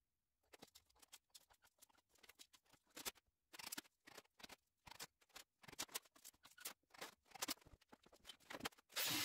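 Faint, scattered clicks and light taps, as of tools or small metal parts being handled. About nine seconds in, a loud, steady rushing noise starts abruptly.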